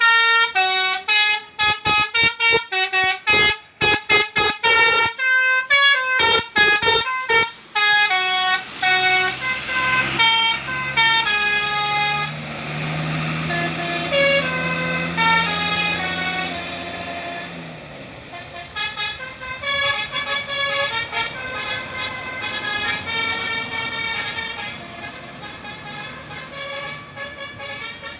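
Basuri telolet bus horn playing an improvised tune. It opens with a fast run of short, clipped notes. From about eight seconds in the notes grow longer and smoother, with a steady low hum beneath them for several seconds, and the tune carries on more quietly towards the end.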